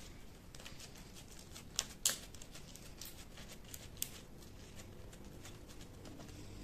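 Glitter slime being kneaded and pressed flat by hand, making a run of small sticky clicks and pops, the loudest two close together about two seconds in and another about four seconds in.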